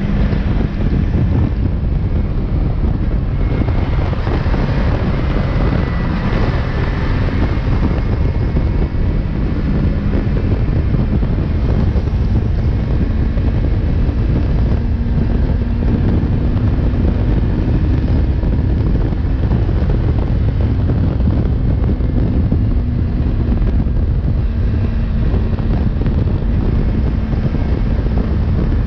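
Heavy wind noise on the microphone of a Yamaha MT-03 ridden at about 100 km/h, with the motorcycle's engine running steadily beneath it at cruising revs.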